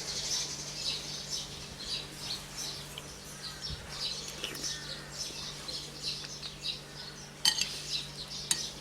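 Small birds chirping continuously, with a spoon clinking twice against a bowl near the end.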